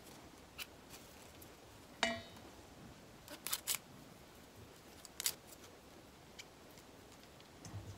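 Moringa leaves being plucked from their stems by hand into a plastic colander: faint, scattered snaps and light rustles. The loudest is a sharper click with a brief ringing tone about two seconds in.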